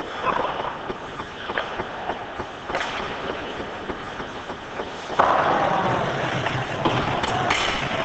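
Ice hockey play: skates scraping the ice and sticks clacking, with frequent short clicks. About five seconds in, a sudden louder rush of noise with voices calling out takes over.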